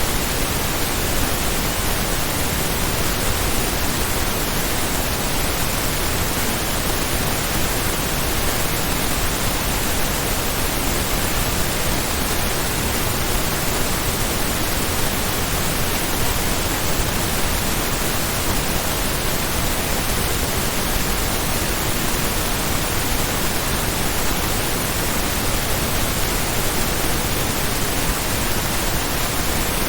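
Steady pink noise test signal: an even hiss spread across the whole audible range without any change, the signal used for speaker and room testing.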